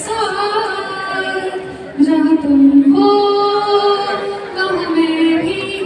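A woman singing into a microphone, holding long notes with vibrato; the phrase grows louder about two seconds in.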